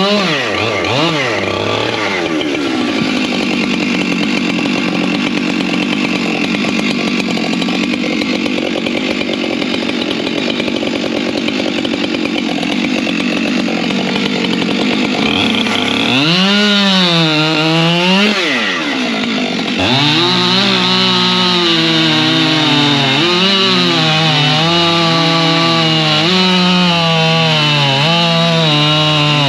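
Two-stroke chainsaw cutting firewood: the engine holds a steady note under load, revs up and drops back about midway, then cuts again with its pitch rising and falling as it works through the wood.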